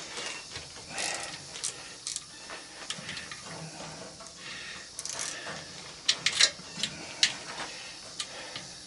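A 1/4-inch ratchet clicking in short spells as it backs out a screw holding a washing machine motor, with scattered sharp metal clicks.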